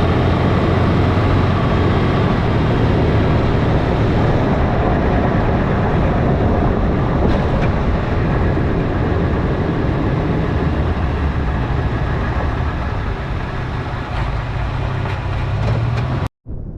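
Toyota FJ Cruiser's 4.0 L V6 running at low speed on rough, rocky ground, with steady tyre and suspension noise heard from close by the front right wheel. The sound cuts off suddenly near the end.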